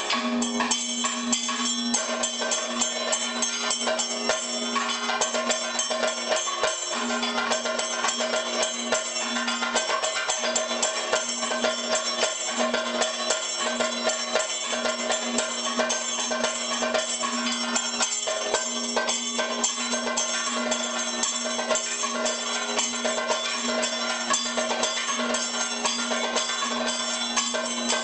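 Kathakali percussion ensemble playing: rapid drum strokes without pause over steady ringing metal tones from gong and cymbals.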